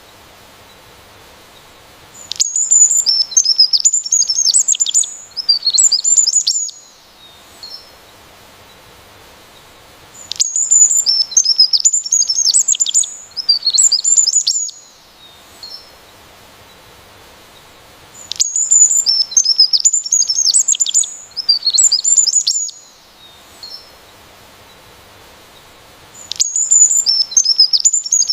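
A songbird singing a fast, high-pitched phrase of chirps and trills lasting about four seconds, repeated four times at even intervals of about eight seconds, with quiet pauses between.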